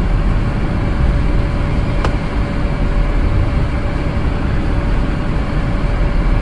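Toyota Kijang LGX's 2.0-litre four-cylinder petrol engine idling while the car waits in a queue, heard from inside the cabin as a steady low hum. A single click comes about two seconds in.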